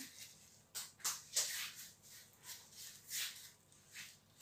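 Small plastic bag of fufu crinkling in short bursts, about six times, as it is handled.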